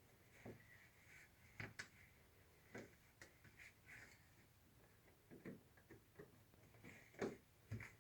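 Faint, scattered clicks and knocks of plastic parts of a vacuum cleaner being handled as its filter is fitted into the housing, the loudest knock near the end.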